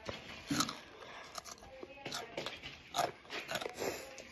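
A child biting into a hot chip and chewing it, with irregular crunches; the loudest come about half a second in and again about three seconds in.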